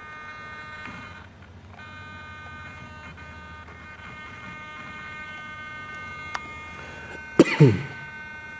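A pair of digital flap servos on a Y harness, driven together from a servo tester, give a steady high-pitched electric whine of several tones. The whine stops briefly about a second in. The pair run smoothly together without fighting each other. A short sound from a man's voice comes near the end.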